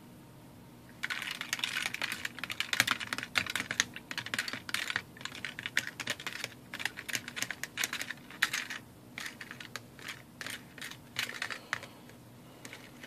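Small metal battery terminals clicking and rattling against a plastic tub of rinse water as they are swished around with metal forceps. Rapid, irregular clicks start about a second in and thin out near the end.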